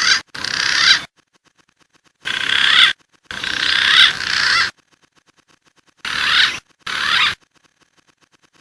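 Green pigeon (punai) calling: warbling whistles that glide up and down, in three pairs of short calls. Each call starts and stops abruptly, as in an edited, looped recording.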